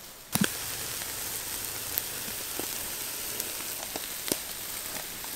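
Marinated chicken leg pieces sizzling on an oiled wire-mesh grill over an open fire, a steady hiss that starts about a third of a second in, with a few scattered crackles and pops.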